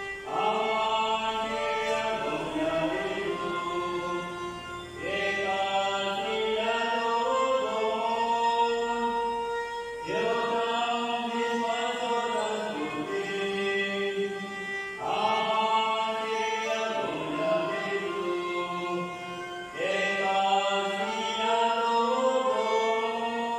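Church hymn or chant sung in long held notes, in phrases that start again about every five seconds.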